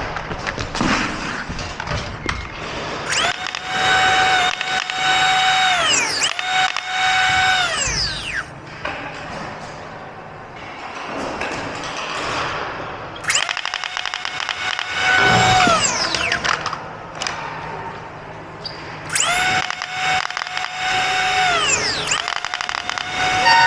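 Flywheel foam-dart blaster motors spinning up and down: about five bursts of a high, steady whine, each lasting a second or two, that slide down in pitch as the flywheels spin down after the trigger is let go.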